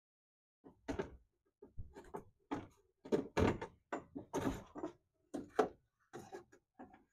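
Power window regulator being fitted into a car door's bare inner steel panel: a run of irregular metal knocks and rattles, with short silent gaps between them.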